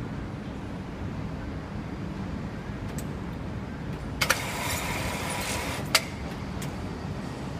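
Steady low outdoor rumble of distant traffic. About four seconds in, a hissing, rustling noise lasts about a second and a half, opening and closing with a sharp click.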